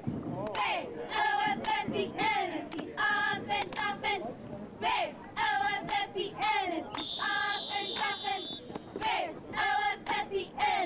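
A girl chanting cheerleading cheers: short rhythmic phrases in a sing-song voice, one after another. A brief high steady tone sounds about seven seconds in.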